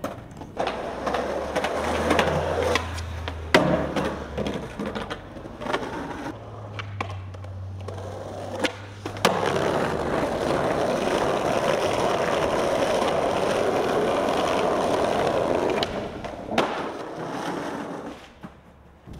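Skateboard wheels rolling on concrete in a few separate runs, the longest a steady roll in the second half, with several sharp clacks of the board popping and landing.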